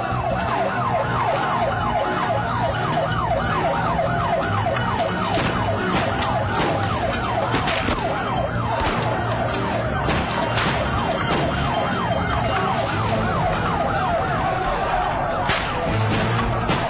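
Ambulance siren wailing in a fast, repeated up-and-down yelp. Several sharp bangs sound over it in the middle and again near the end.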